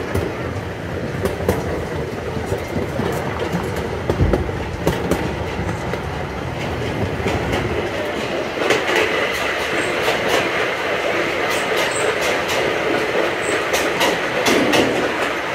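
Miniature park train rolling along its track, heard from aboard: a steady rumble with repeated clacks from the rail joints. About halfway through, a thin steady high whine joins in and holds.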